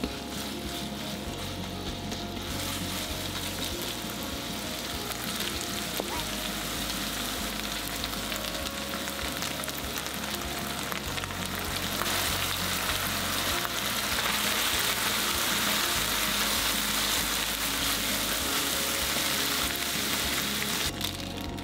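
Minced pork and garlic chives sizzling in oil in a frying pan as they are stir-fried with a spatula. The sizzling gets louder about halfway through.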